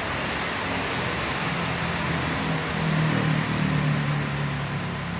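Engine hum of a passing vehicle, swelling from about a second and a half in, loudest a little past the middle, then fading, over a steady background hiss of traffic noise.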